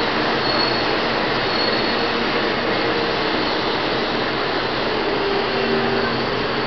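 Taiwan High Speed Rail 700T electric train rolling slowly along the platform as it pulls into the station. It makes a steady rushing noise from its running gear and equipment.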